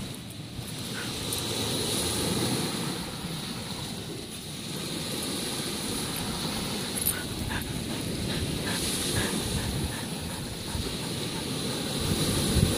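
Waves breaking on a shingle beach, with wind rumbling on the microphone, a steady noisy wash. A few small scuffs and clicks of sand being dug by paws and a hand come through over it in the second half.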